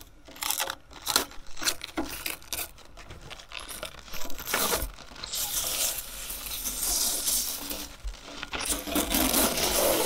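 Plastic crinkling and tearing, with many short light clicks and taps at first and then a longer stretch of rustling and peeling: protective plastic film being pulled off and crumpled.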